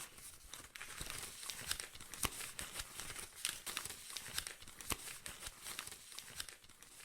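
Faint, irregular crinkling and crackling rustle, dense with small clicks.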